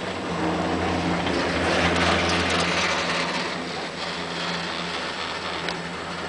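Chairlift ride: a steady low mechanical hum, with a rushing noise that swells for a couple of seconds and then eases off.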